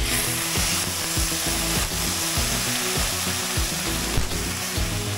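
Hot water hitting a hot wok of fried rice and spices, hissing and sizzling sharply as it goes in, then easing off, while a steel spatula stirs it through.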